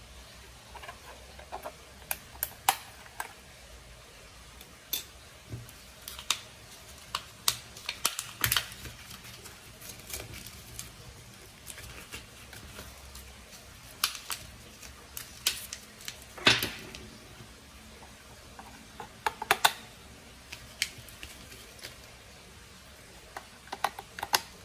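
Handling clicks and knocks from the plastic back of an IKEA DEKAD alarm clock as its battery compartment is worked and AA batteries are fitted. The clicks come at irregular intervals, the loudest a little past the middle.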